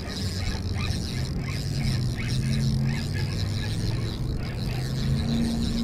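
Spinning reel being cranked while fighting a hooked king salmon, under a steady low hum that shifts in pitch a few times.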